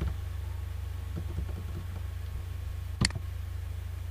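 A single sharp computer mouse click about three seconds in, with a few faint light clicks before it, over a steady low electrical hum.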